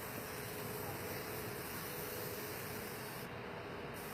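Aerosol spray-paint can hissing in a long, steady spray, which stops for about half a second near the end and then starts again.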